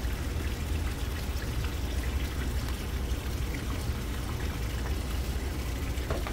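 Steady rushing noise with a heavy low rumble, and a light knock near the end.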